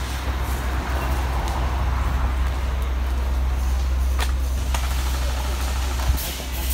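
Rustling handling noise from a camera carried by a moving player, over a steady low rumble, with a few sharp clicks around the middle.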